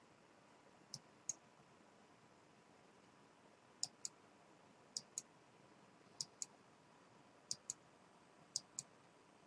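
Six pairs of light, sharp clicks, the two clicks of each pair a fraction of a second apart and the pairs spaced irregularly about a second or more apart, over near-silent room tone with a faint steady hum.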